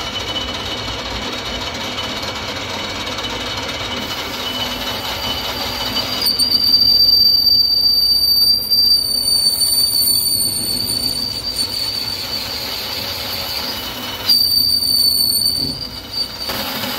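Metal lathe cutting a high-strength steel gear blank. The tool squeals with a high, steady tone as it peels off chips, over the lathe's running noise. The squeal swells about six seconds in, fades, and comes back briefly near the end.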